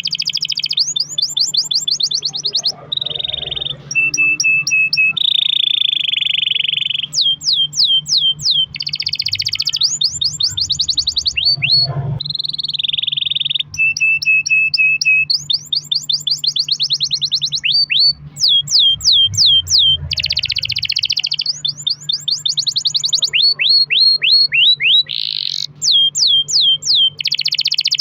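Domestic canary singing a long, unbroken song: fast trills and buzzy rolls alternating with runs of quick downward-sweeping whistled notes, each phrase lasting a second or two. A faint steady low hum sits underneath.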